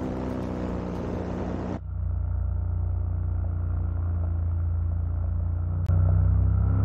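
Two-stroke paramotor engine running in flight, a steady low drone. The sound changes abruptly about two seconds in and steps louder with a click near the end.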